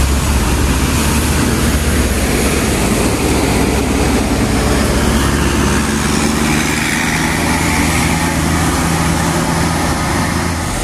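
Rear-engined Mercedes-Benz OH 1526 coach's diesel engine running as the bus drives past close by and pulls away, a steady low engine sound.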